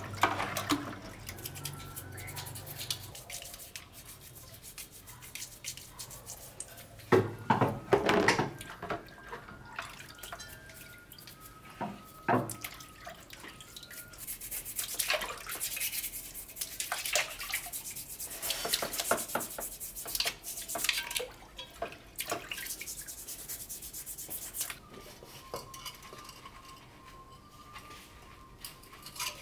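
Scrubbing with a brush, with water dripping, sharp knocks about a quarter of the way through and again near the middle, and a long spell of steady scrubbing later on.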